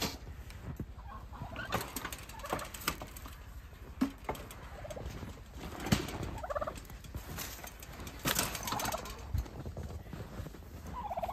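Farm poultry calling in short, repeated bursts, with scattered sharp knocks and clatter in between.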